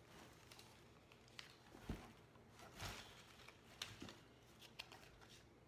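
Near silence, broken by faint, scattered handling noises: a few light clicks and a soft rustle or two as an item and its tag are turned over by hand.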